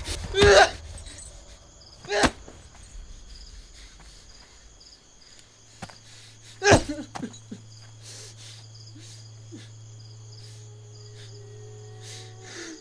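Crickets chirping steadily in a night-time field soundtrack, broken by three loud, short sudden sounds about half a second, two seconds and six and a half seconds in. A low steady drone comes in about five seconds in, and soft held tones join near the end.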